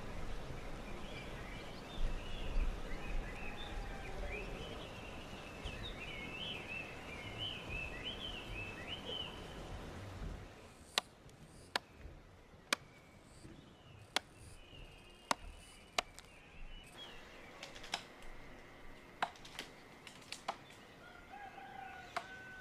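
Birds calling in quick chirps and warbles over a steady outdoor background noise. About halfway through, the background drops away and a run of sharp knocks or clicks comes roughly once a second.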